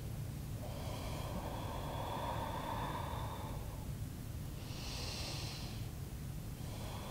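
A woman breathing slowly and audibly while holding a yoga pose: one long, soft breath that ends about four seconds in, then a short, sharper, airy breath about five seconds in.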